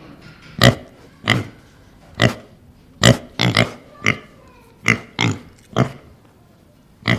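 Pig grunting: a series of short grunts, about one or two a second.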